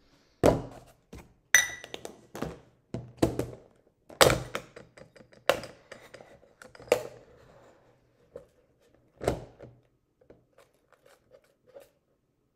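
Irregular thunks and knocks from a metal measuring cup and a brown sugar container being handled on a kitchen counter as brown sugar is scooped out; one knock about one and a half seconds in rings metallic. After about ten seconds only light taps remain.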